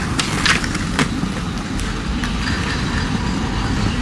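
Skateboard wheels rolling over stone paving with a steady low rumble, and a few sharp clacks of the board in the first second.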